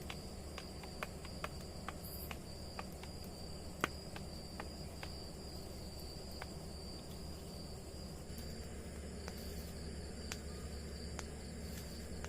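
Night-time forest insects, crickets, trilling steadily on one high note over a low hum and hiss. Scattered sharp ticks come at irregular moments, more often in the first half.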